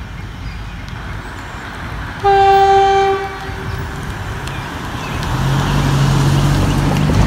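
A Union Pacific GP15-1 diesel locomotive's horn sounds one short blast of about a second, a couple of seconds in, as it approaches a grade crossing. Then the low drone of its EMD 12-cylinder diesel grows louder as the locomotive nears.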